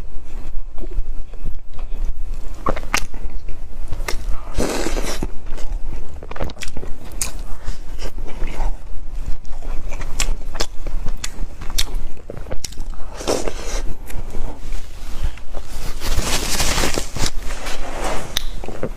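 Close-miked eating: bites and chewing, with scattered sharp clicks and a few longer rustling, squishy stretches.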